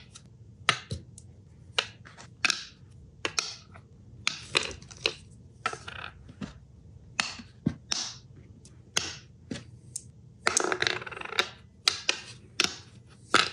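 Small steel knurling wheels clicking together and being set down one at a time on an MDF board: irregular sharp taps and clinks, with a short rattling scrape a little after ten seconds.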